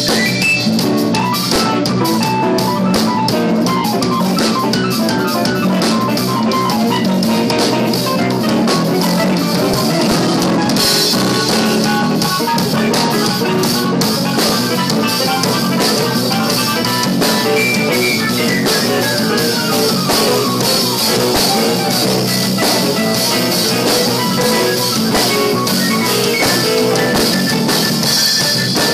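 Jazz-fusion band music led by a busy drum kit, with electric guitar and bass. A quick descending run falls in pitch about two-thirds of the way through.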